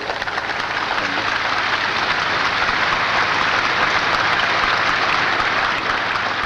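A large crowd applauding, the clapping swelling to its loudest around the middle and fading near the end.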